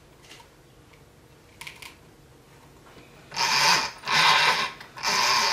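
RC buggy drivetrain whirring as a wheel is turned by hand, in three short spins about a second apart starting about three seconds in: the spur gear, pinion and unpowered 3660 brushless motor turning together. Before that, a couple of light clicks as the motor leads are plugged in.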